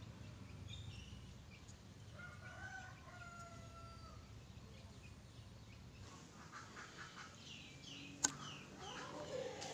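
A rooster crowing, one long call a couple of seconds in, over a faint outdoor background with small birds chirping in the second half. One sharp click about eight seconds in.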